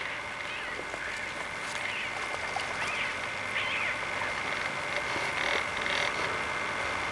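Birds calling at a lakeside, short chirps and a few raspy calls scattered through, over a steady high-pitched whine.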